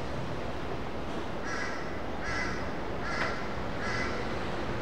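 A crow cawing four times, each call short and harsh, a little under a second apart, over steady background noise. A short click lands with the third caw.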